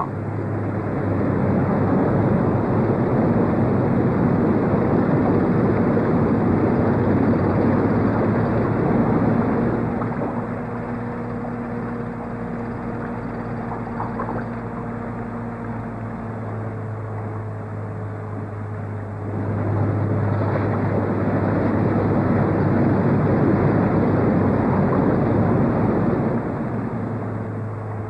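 Construction machinery running steadily, an engine drone with a low hum, as a crane works a concrete tremie pipe and hopper. It drops in level about ten seconds in and comes back up a little before twenty seconds.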